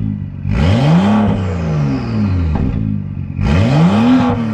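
BMW F30 335i's turbocharged inline-six blipped twice at idle, its exhaust rising and falling in pitch with each rev; it is loud with the rear muffler and its exhaust valves removed.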